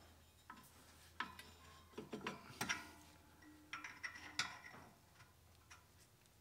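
Hand wrench working the nuts on the mower's drive-belt tensioner bolt: faint, irregular metallic clicks and clinks of the wrench on the nuts as the belt tension is tightened.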